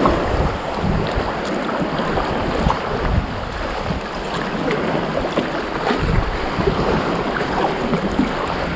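Choppy sea water sloshing and splashing around a kayak, with irregular low wind rumble on the microphone and small scattered splash ticks.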